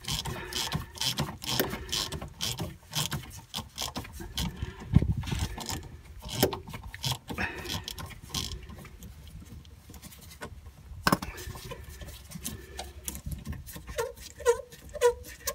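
Quarter-inch drive hand ratchet with a hex bit socket clicking in quick runs as it is swung back and forth, undoing a brake caliper guide bolt.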